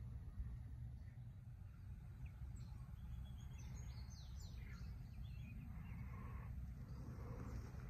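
Small birds chirping outdoors: quick, high, falling chirps in two short clusters a few seconds in, over a steady low rumble.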